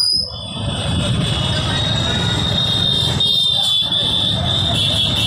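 Loud rally crowd noise: many voices mixed with vehicle noise, with a steady high-pitched tone running through it that gets stronger about two seconds in.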